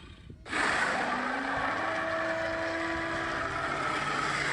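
Car driving: a steady rush of road and wind noise that comes in suddenly about half a second in and holds.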